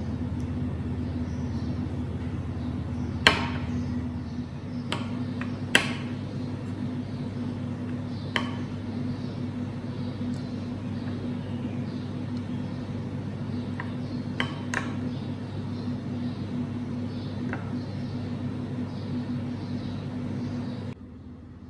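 Metal spoon clinking a handful of times against a bowl of melted chocolate as it is lifted, poured from and stirred, the sharpest clinks about three and six seconds in, over a steady low hum.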